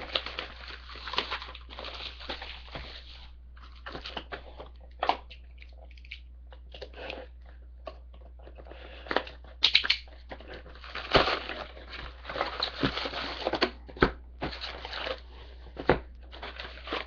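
Sports trading card packs being taken from a cardboard box and opened by hand: irregular crinkling and rustling of pack wrappers and cardboard, with sharp clicks and taps, over a steady low hum.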